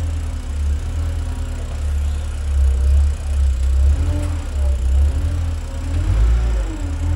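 Forklift engine running with a deep rumble, its pitch and loudness rising and falling as the truck is driven and worked.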